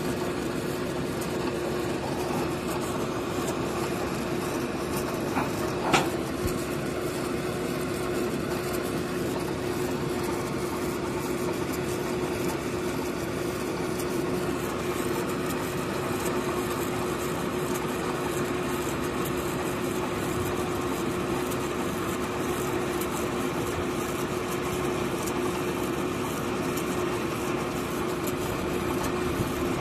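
Truck-mounted borewell drilling rig's engine running steadily with a constant hum, with one sharp knock about six seconds in.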